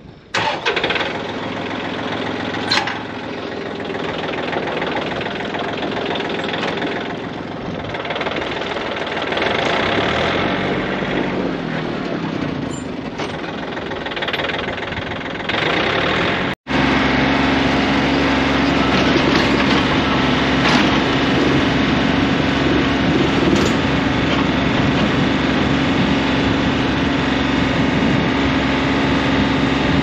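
Compact tractor engine running as the tractor drives. After a very brief dropout about halfway through, the engine settles into a steadier, louder hum.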